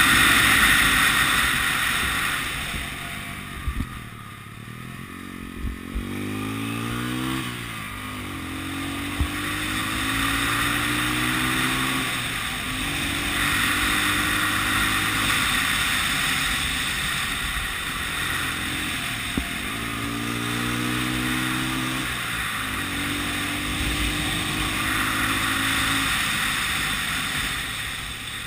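Honda CB 250 RS single-cylinder four-stroke motorcycle engine pulling under throttle, its pitch rising and dropping back several times as the rider works through the bends. Wind rushes over the bike-mounted microphone, loudest in the first couple of seconds.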